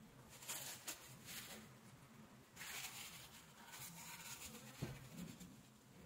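Faint scratching and rustling of hand work: a wooden craft stick spreading epoxy on a rubber air-pump diaphragm, then tissue paper rubbing over it, with one small click near the end.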